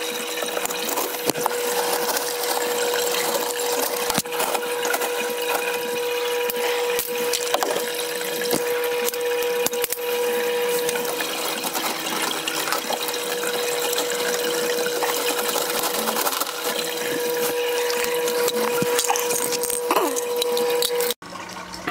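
Steady rush of running water over a steady hum, as from a recirculating deep water culture hydroponic system with its pump running, with scattered clicks and light knocks from plastic tubing and fittings being handled. It cuts off suddenly near the end.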